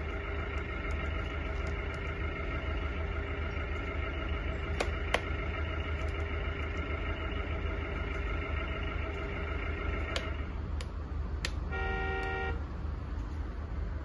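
Remote-control scale model crawler loader running with a steady engine-like drone and whine. The drone cuts off about ten seconds in, and a brief horn-like toot sounds shortly after.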